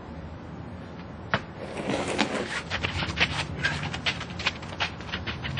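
A heavy tractor tire being swung around a man's waist: a single sharp knock about a second in, then rapid irregular scuffing and clicking, several strokes a second, as the tire rubs and knocks against him and his feet shuffle.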